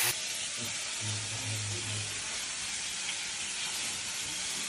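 Steady hiss of food sizzling in a frying pan.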